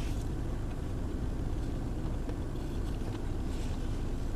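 Steady low rumble inside a car's cabin from the idling engine and heater, with a few faint small clicks of someone eating.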